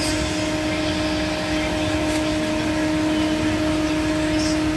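A steady motor drone with a constant low pitch, with brief rustles of plastic snack packets being handled about two seconds in and near the end.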